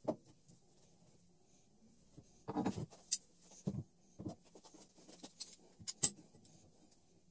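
Handling noise of a metal C-channel and steel bar clamps on a wooden workbench: scattered knocks, scrapes and clicks as the channel is set down and the clamps are moved and tightened. There is a cluster of knocks about two and a half seconds in, and the sharpest click comes about six seconds in.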